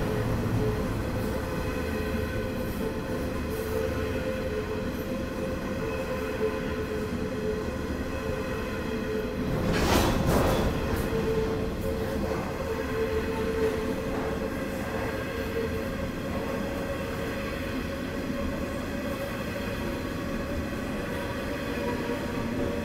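Coal hopper wagons of a long freight train rolling past, a steady rumble of wheels on rail with a thin, steady ringing tone over it. A louder burst of clattering noise about ten seconds in, lasting about a second.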